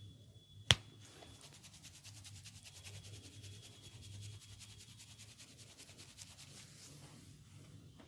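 Massage on a person: one sharp crack under the masseur's hands just under a second in, the loudest sound, then a long run of fast, faint, even ticking and rubbing of hands working the skin.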